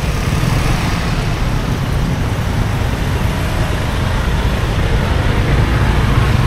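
Steady street traffic noise: a continuous rumble of passing vehicles with no single distinct event.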